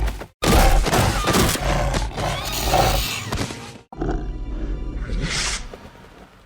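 Fictional monster roars and growls for the Monsterverse creature Dog, mixed with music: a loud stretch lasting about three seconds, a brief break, then a second part that fades out.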